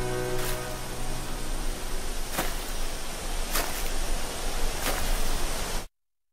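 A steady rushing wind noise carries on as the last held chord of the ballad dies away in the first couple of seconds. Four sharp clicks sound through the wind before everything cuts off abruptly to dead silence just before the end.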